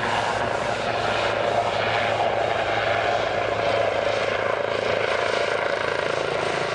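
Helicopter in flight overhead: a steady rotor and turbine sound.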